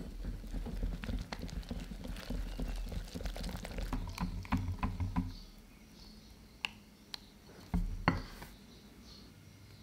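Wire whisk beating batter in a glass bowl: fast, rattling, wet strokes for about five seconds, then the whisking stops, with a few light ticks and one sharp knock of the whisk against the bowl near the end.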